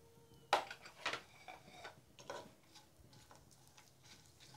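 Faint, scattered ticks and crackles of whole spices (bay leaves, cinnamon, cardamom, cloves) frying in ghee on low heat in a non-stick pan. A sharper click comes about half a second in, and another about a second in.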